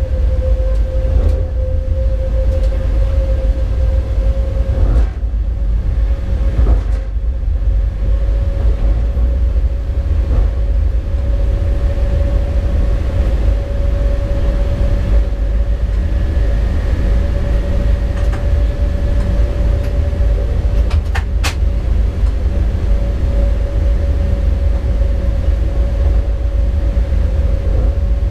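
Siemens BR 189 (ES64F4) electric locomotive heard in its cab while under way: a steady low rumble with a steady whine over it. A few sharp clicks, two close together about two-thirds of the way through.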